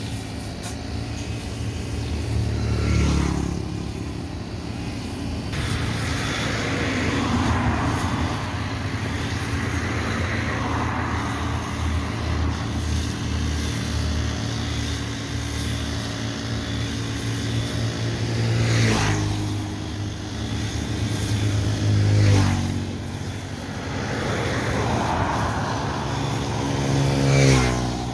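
Road traffic: vehicles pass close by, four of them loudest, a few seconds in, twice about two-thirds through, and near the end, over a steady engine drone.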